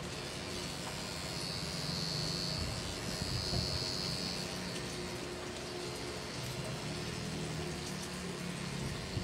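Pen-style rotary tattoo machine running steadily, a continuous buzzing hum with hiss. A thin high whine rises over it for about three seconds, from roughly a second and a half in.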